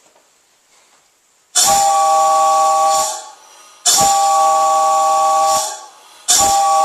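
Homemade copper multi-chime train whistle, with pipes from 3/4 to 2 inch, blown in three long blasts. Each blast is a steady chord of several tones over a rushing hiss of air. The first starts about a second and a half in, and the third is still sounding at the end.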